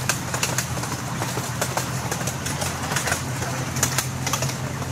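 Amusement-park train in motion, heard aboard: a steady low drone from the locomotive with irregular clicks and clacks from the wheels and cars running over the track.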